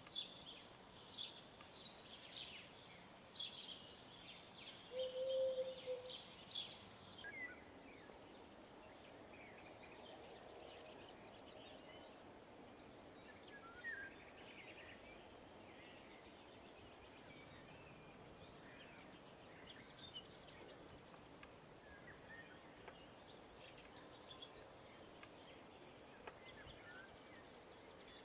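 Songbirds singing: busy, rapid chirping for the first seven seconds, with a short low hooting note about five seconds in. After that, only sparse faint chirps over quiet background noise.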